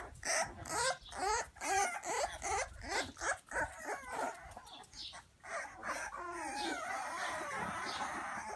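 A litter of puppies whining and squealing as they crowd around their mother, in short high cries that rise and fall several times a second. Over the last couple of seconds the cries merge into a continuous overlapping chorus of whimpers.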